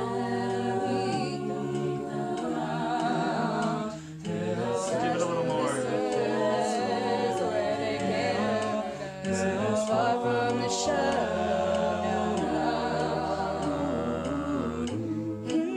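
An a cappella vocal group singing in close multi-part harmony, with a low bass voice holding long notes under the upper parts and short crisp percussive hits on top.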